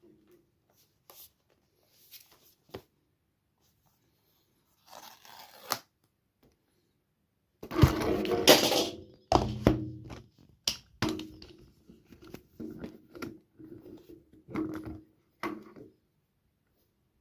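Handling noises from opening an iPad's packaging: scattered taps and knocks, with a louder stretch of tearing and rustling about eight seconds in, then more short knocks and scrapes.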